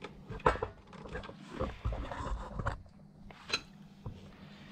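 Plastic clicks and scraping as a DeWalt DWV9000 quick-connect dust-hose adapter is twisted and worked on its locking collar. The clicks come irregularly, with the sharpest one about three and a half seconds in.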